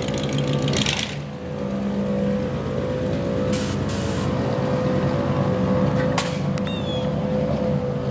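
1950s hot rod's engine running with a steady low rumble as the car pulls away and drives off, with a few short hisses about halfway through.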